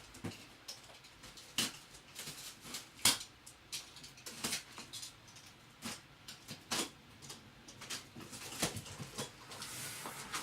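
Cardboard box being cut and handled with a utility knife: scattered scratches, taps and clicks, with a longer scraping rustle near the end.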